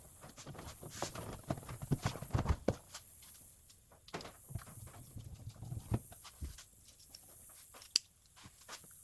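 Newly installed Dodge Ram pickup door handle and latch being worked: a run of irregular light clicks and clunks, with one sharp click near the end.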